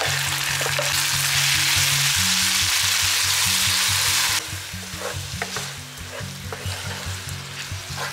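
Onions, green chillies and curry leaves frying in hot oil in a pan and being stirred. A loud steady sizzle drops away suddenly about four seconds in, leaving quieter frying with the scrape and tap of the spatula.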